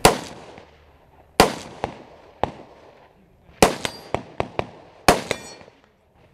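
Rifle shots fired in a practical shooting stage: four loud shots spaced about one and a half to two seconds apart, each followed by a fading echo, with several fainter sharp cracks in between.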